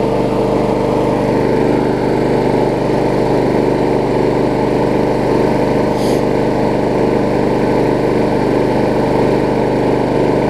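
Briggs & Stratton Quantum single-cylinder engine on a Troy-Bilt push mower running steadily, left to run after repair so it purges any water from the fuel.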